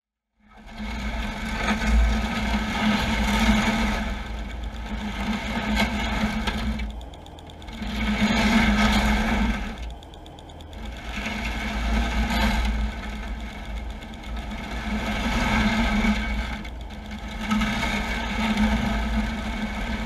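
A steady mechanical drone with a low hum and heavy rumble, heard underwater, easing off briefly twice near the middle.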